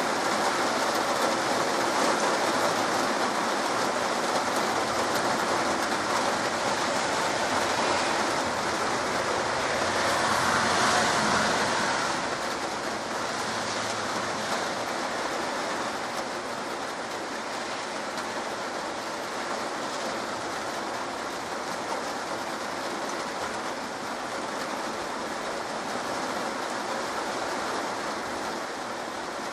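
Heavy rain pouring down on trees, a steady rushing hiss that swells louder about ten seconds in and then eases a little.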